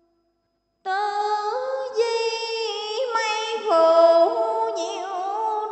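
A woman's voice chanting Hoa Hao scripture verse in the drawn-out sung recitation style, unaccompanied. After a short silence it comes in about a second in and holds one long syllable that steps up and down in pitch with small wavering turns.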